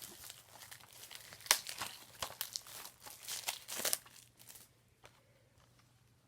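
Plastic shrink-wrap on a Blu-ray case being torn and peeled off: a busy run of crinkling and crackling that dies away about four and a half seconds in.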